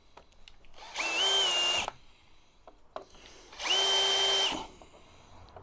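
Power drill with a countersink bit run in two short bursts of about a second each, spinning up quickly to a steady whine each time. It is opening out a mounting hole in the model tank's hull so a lifting hook will sit flush.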